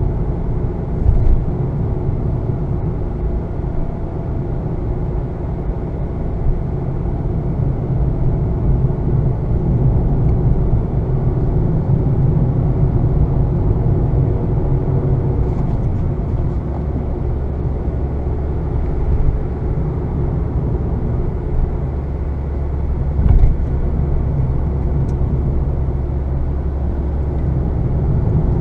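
2020 Honda Fit's 1.5-litre four-cylinder engine and road noise while driving: a steady low rumble whose lowest hum shifts to a new steady note a little past halfway, with a couple of brief thumps.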